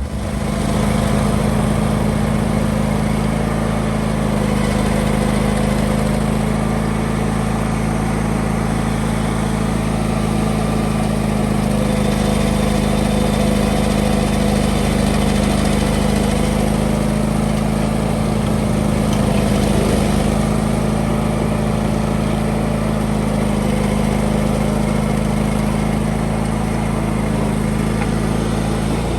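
An engine running steadily at a constant speed, with a strong unchanging low hum.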